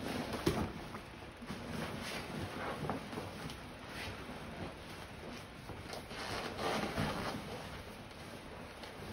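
Rustling of a grappling dummy's canvas gi, with irregular soft thumps of the dummy and a body moving against foam mats as it is rolled and grappled.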